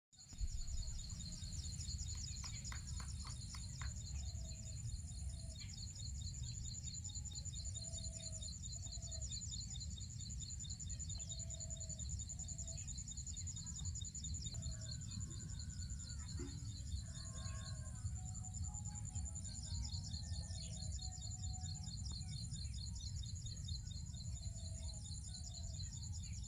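Outdoor morning ambience: a steady, high, fast-pulsing insect chirr, with short low bird calls repeated in pairs and scattered brief chirps, over a constant low rumble.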